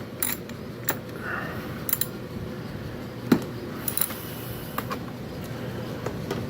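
Metal hand tools clicking and clinking on the engine-cover bolts of a riding mower while the bolts are loosened: separate sharp clicks at uneven spacing, the loudest about three seconds in.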